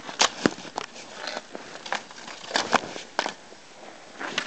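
A scattering of sharp clicks and knocks at irregular intervals, the loudest early on and a cluster around two and a half to three seconds in, over a faint background hiss.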